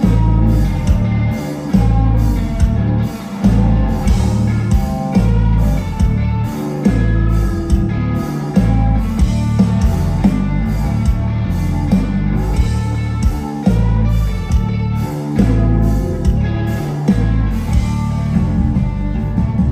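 Live rock band playing loud: electric guitars, electric bass and drum kit, with a heavy low end and a steady driving beat.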